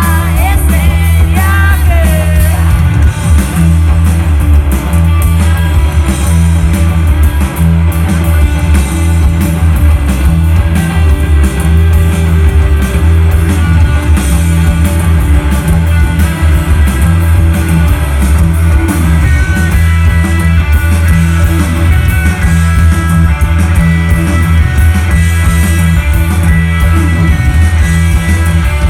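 Indie rock band playing loudly live: electric guitars, bass and drums in a dense, steady groove, with a voice singing over it for the first couple of seconds.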